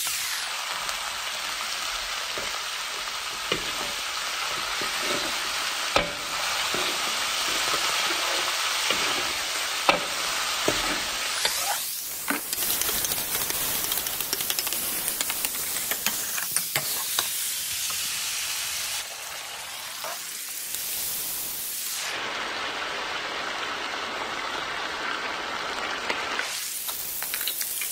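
Sliced pork and garlic sizzling in oil in a wok, with a metal ladle scraping and clicking against the pan as it is stir-fried.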